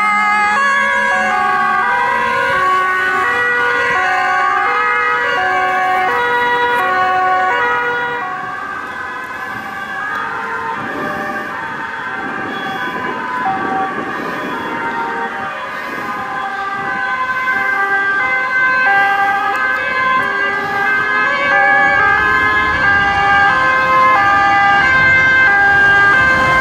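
Several fire engines' two-tone sirens sounding at once, each stepping between a high and a low pitch about once a second, out of step with each other. They fade somewhat a third of the way in, then grow louder again, with the low engine rumble of a fire truck passing close near the end.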